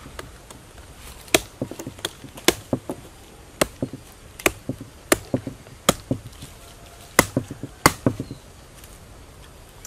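Large knife chopping into a fresh palm trunk to get at the heart: a series of sharp, wet-sounding strikes into the fibrous wood, many followed by a lighter second hit, with a brief pause after about six seconds.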